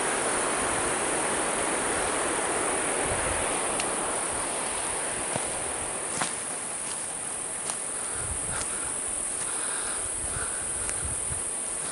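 Steady forest ambience: an even rushing hiss with a constant high insect-like buzz on top, and a few faint clicks in the second half.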